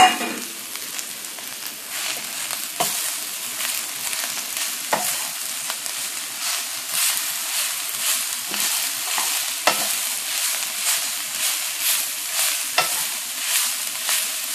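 Shredded cabbage and carrots sizzling in hot oil in a nonstick skillet while being stirred with a wooden spoon: a steady frying hiss with regular scraping strokes and a few knocks of the spoon on the pan. A brief loud clatter comes right at the start as the cabbage goes in.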